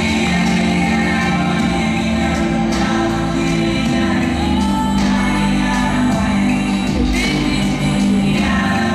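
Music with a singing voice, steady and loud throughout.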